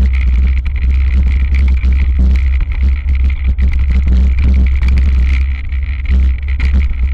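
Heavy wind rumble on a handlebar-mounted camera's microphone as a hardtail mountain bike descends a rough dirt trail, with the bike rattling and knocking over bumps.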